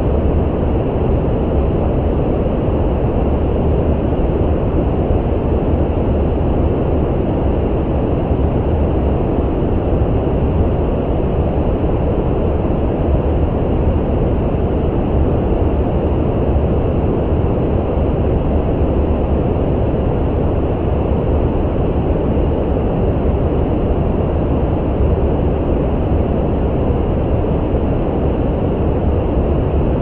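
Steady brown noise: a deep, even hiss with most of its weight in the low end and little treble, holding one level with no change.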